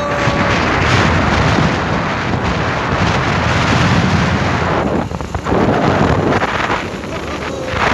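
Strong wind buffeting a phone's microphone while riding along a road, a loud rushing noise that eases briefly about five seconds in and again near seven seconds.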